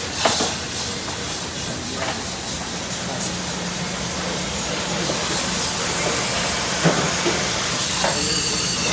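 Steady hiss of water spraying in a dish pit, over a constant low machine hum, with a few clinks and knocks of dishes.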